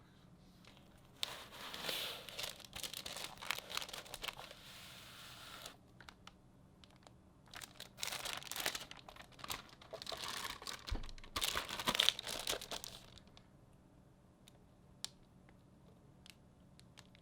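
Keyboard packaging being unwrapped and handled, crinkling and rustling in two long spells with small clicks mixed in: the first starts about a second in and lasts some four seconds, the second runs for about five seconds after a short pause.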